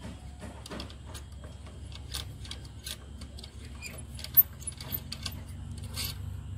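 Small metallic clicks and taps from hands handling and fitting parts on a brush cutter engine, with one sharper knock about four seconds in.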